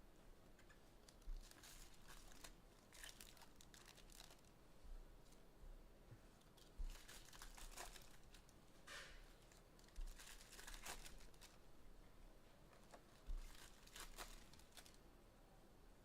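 Faint tearing and crinkling of foil trading-card pack wrappers being torn open, in short scattered bursts, from opening a box of Prizm baseball packs.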